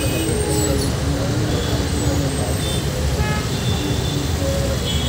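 Stopped city traffic: engines idling as a steady low rumble, with vehicle horns tooting over it now and then.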